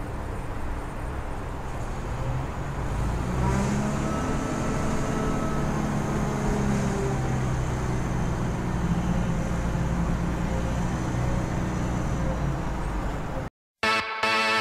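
Outdoor traffic noise: a steady low rumble and hiss, with a motor vehicle's engine hum coming up about three and a half seconds in. It cuts to silence near the end, and a pop-rock song starts just before the close.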